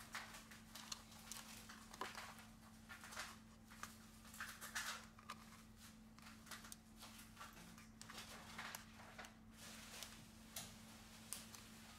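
Faint, irregular scraping and clicking of plastic playing cards being worked along the metal frame of a Samsung Galaxy S7 Edge, cutting through the adhesive that holds its screen. A steady low hum runs underneath.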